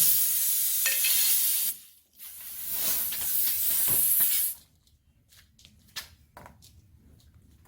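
Air hissing out of a punctured car tire through the reamed hole as the plug-kit tool is pulled out and the plug is pushed in, in two bursts of about two seconds each. Then only small clicks and taps of the tool at the tread.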